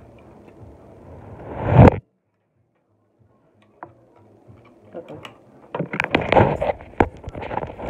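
Close mouth sounds of eating and sucking seasoning off fingers. One swelling loud noise cuts off abruptly about two seconds in, then total silence. From about halfway, the phone filming is handled right at its microphone, with knocks, clicks and rubbing.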